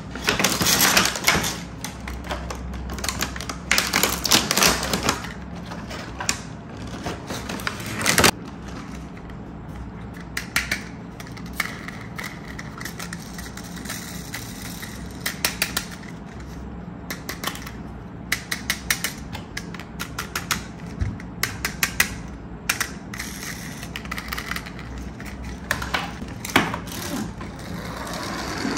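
Toy cars handled and set down on a wooden tabletop: clusters of quick clicks and rattles, densest in the first few seconds, with one sharp click about eight seconds in and scattered clicks after.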